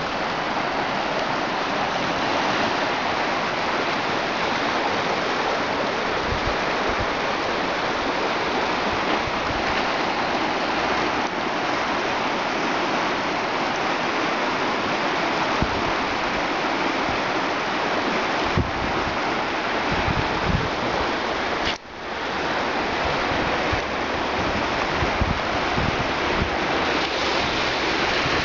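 Muddy floodwater of the swollen Dadès River rushing steadily, a constant even noise, with occasional low bumps on the microphone and a momentary dropout about 22 seconds in.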